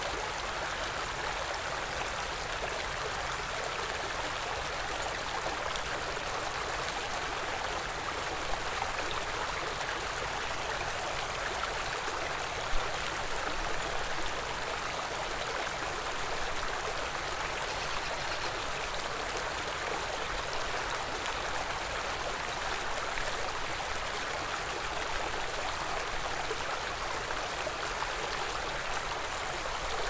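Small forest stream flowing steadily, a continuous rush and trickle of water. There is one brief sharper sound about a third of the way in.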